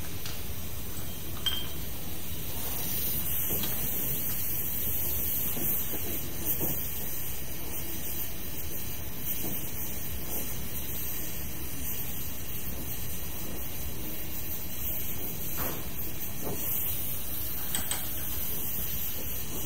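Gas torch burning with a steady hiss while it heats small steel brackets for bending, with a few light knocks near the end.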